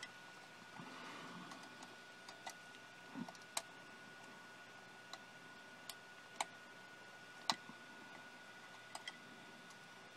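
Small, sharp, irregular clicks and taps of wire connectors and cables being handled and plugged in inside a laser projector's chassis, with a short rustle of cable about a second in. A faint steady high tone runs underneath.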